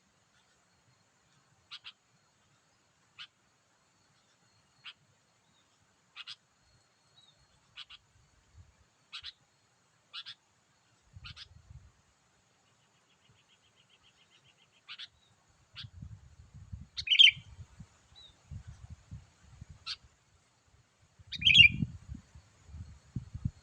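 Sooty-headed bulbul (kutilang) calling: short, sharp chirps about every second or so, a brief trill about halfway through, and two louder calls in the second half. A low rumbling noise runs under the later calls.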